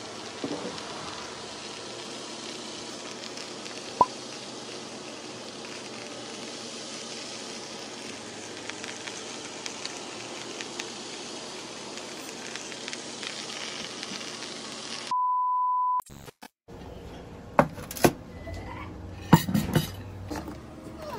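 Steady sizzling hiss of chicken pieces cooking in a foil pan on a charcoal grill, with one sharp click about four seconds in. About fifteen seconds in, a single steady beep sounds for about a second, then several sharp clinks and knocks of dishes on a table.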